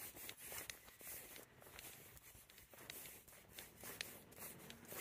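Faint scuffing footsteps on paving slabs during a walk, with scattered light irregular ticks.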